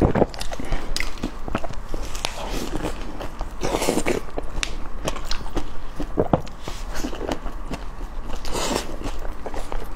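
Close-miked chewing of grilled eggplant topped with minced garlic: a run of quick wet mouth clicks and lip smacks, with louder bites about four seconds in and again near the end.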